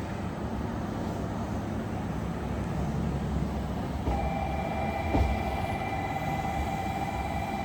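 A train running through the station with a steady low rumble. About halfway in, a sustained tone joins it and holds.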